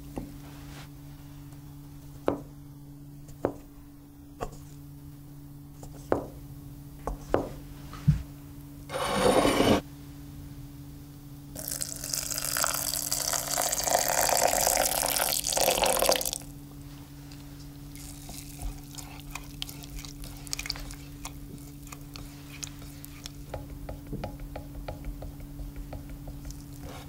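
Milk poured into a glass measuring jug over chopped dark chocolate, a steady splashing rush of about five seconds. Before it come a few sharp clicks of a metal spoon against a ceramic dish and a brief clatter. After it, a utensil stirs the chocolate milk with light, quick clinks against the glass.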